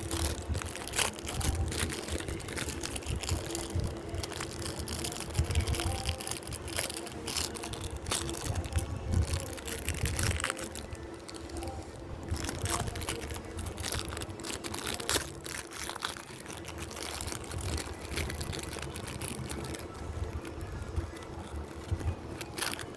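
Gift packaging being handled and opened: irregular crinkling, crackling and clicking with low handling bumps, over a faint steady hum.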